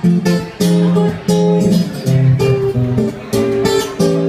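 Two acoustic guitars strumming chords together in a steady rhythm.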